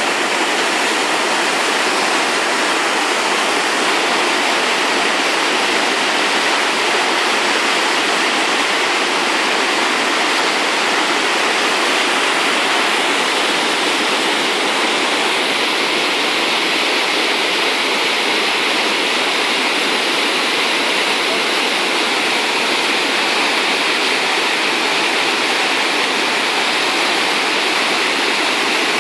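Floodwater pouring over a river weir: a loud, steady rush of turbulent water.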